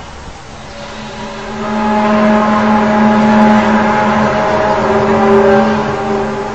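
A loud, steady, horn-like drone at a fixed pitch with several overtones, swelling up about a second and a half in and easing near the end: one of the unexplained 'strange sounds' reported in the sky.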